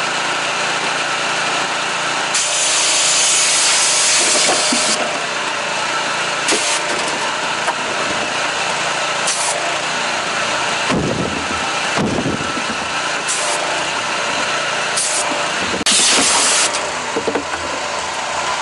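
Gas-engine power washer running steadily, with repeated bursts of high-pressure water spray hissing as the trigger is pulled. There is a long burst a couple of seconds in, several short ones after it, and a loud burst near the end.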